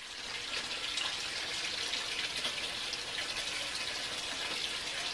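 Chicken sizzling on a barbecue grill: a steady hiss with faint scattered crackles.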